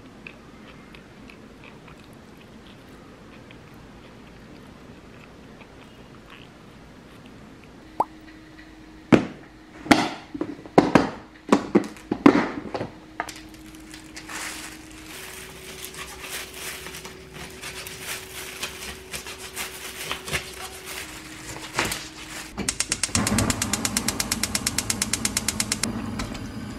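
Kitchen food-preparation sounds: a run of knocks and thumps from handling kimchi on the counter, over a steady hum. Near the end comes a fast, even clicking.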